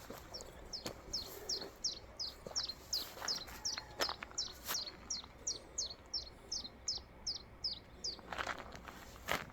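A bird calling a long run of short, high, falling notes, about three a second, which stops about eight seconds in. A few sharp clicks, with a louder one near the end.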